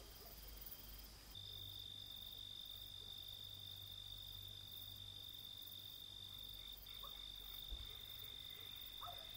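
Faint night ambience of insects: a steady, high, unbroken cricket trill sets in about a second in over a low hum, with a couple of faint short calls near the end.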